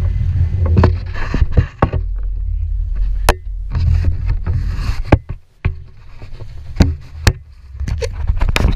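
Low steady rumble of wind and water aboard a small outboard-powered fishing boat, with gusts of hiss. About nine sharp knocks and clacks of handled gear are scattered through it.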